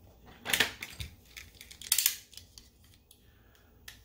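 A small metal tool clicking and scraping against the metal screw base of an LED light bulb, in a few separate clicks with the loudest about two seconds in.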